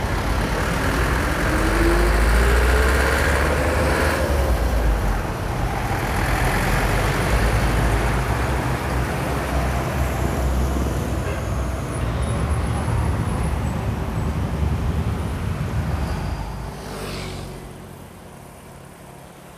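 Road traffic noise with a steady low rumble of passing motor vehicles. A couple of seconds in, one vehicle's engine rises in pitch as it accelerates. The noise drops off sharply about seventeen seconds in.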